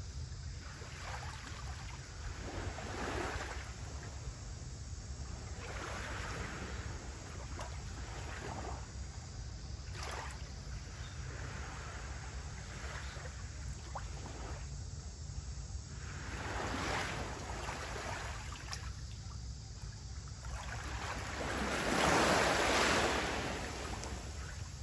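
Small waves lapping at the shore of a calm sea, each soft wash swelling and fading every few seconds, the biggest one near the end, over a steady low rumble.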